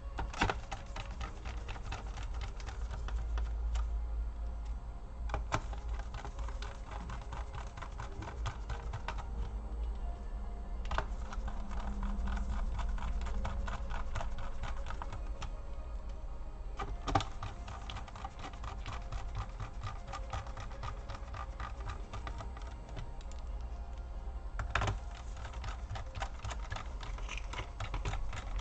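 Rapid small clicks and taps from a laptop being reassembled by hand: screws and plastic case parts being handled and fitted.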